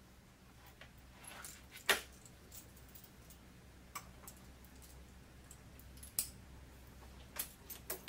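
Metal leash hardware clinking as it is handled: a shackle snap and O-ring on a wheelchair leash attachment giving a few sharp clicks, the loudest about two seconds in.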